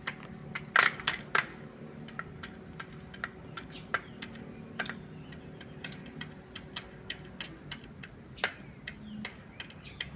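A quail pecking quickly at brown rice grains: a run of sharp, irregular taps, several a second, with a few louder knocks about a second in.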